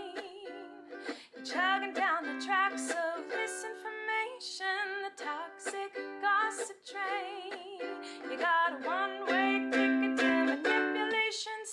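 A woman singing while strumming a ukulele.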